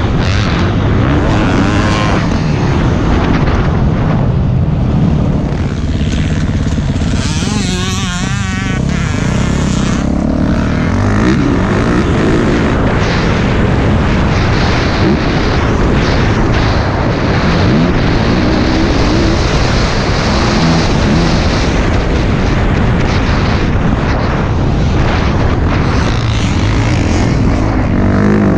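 Yamaha YZ450F's single-cylinder four-stroke engine running hard while being ridden, its pitch rising and falling with throttle and gear changes, with a warbling swing in pitch about eight seconds in.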